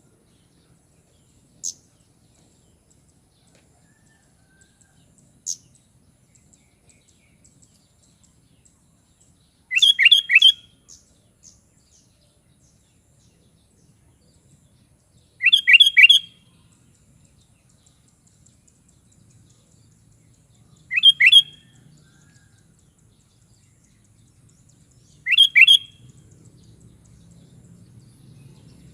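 A sooty-headed bulbul (kutilang) sings short, loud phrases of quick bubbling notes, about one every five seconds. Before the first phrase come a couple of thin, sharp single calls.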